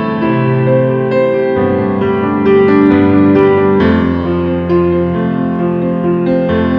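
Background piano music: a gentle melody of held notes and chords.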